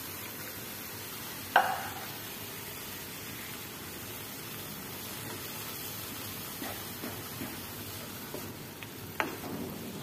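Grated carrots and milk sizzling in a hot frying pan while a wooden spatula stirs them. There is one sharp knock about one and a half seconds in and a smaller one near the end.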